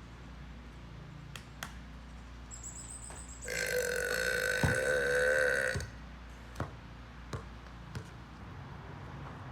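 A person letting out one long, loud burp of about two and a half seconds, starting a few seconds in. Several short sharp taps sound before and after it.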